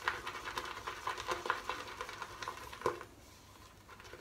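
Shaving brush whipping shaving cream into a lather in a bowl as the lather builds: quick wet strokes with irregular clicks. The strokes stop about three seconds in.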